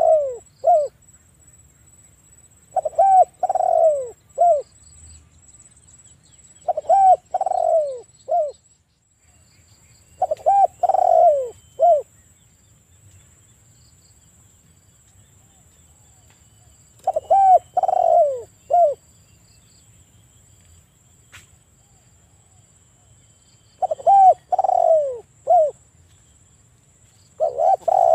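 Spotted dove (tekukur) cooing: repeated phrases of three or four notes, the longest one falling in pitch. A phrase comes every three to four seconds, with a longer pause of about five seconds midway.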